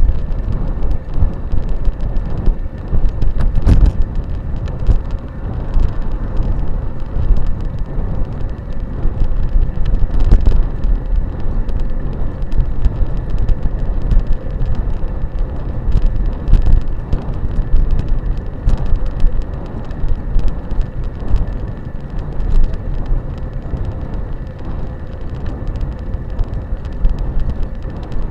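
Electric bike ridden over dirt: a steady low rumble of wind and ground noise on the microphone, broken by frequent knocks and rattles as the bike goes over bumps, with a faint steady high whine.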